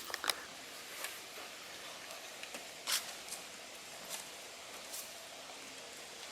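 Footsteps crunching on a dirt and leaf trail, a few irregular steps over a steady outdoor hiss, the loudest about three seconds in.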